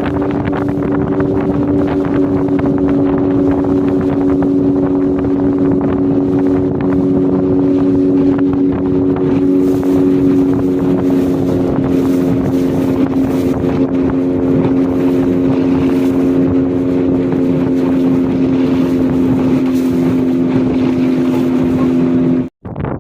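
A small motorboat's engine running at a steady speed, a constant hum over wind and water noise. It cuts off suddenly near the end.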